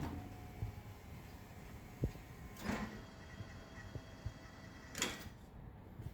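Elevator training simulator running its floor-1 test: a sharp click about two seconds in, a soft scraping sound just after, a few small clicks, and another brief scrape about five seconds in, over a faint steady hum.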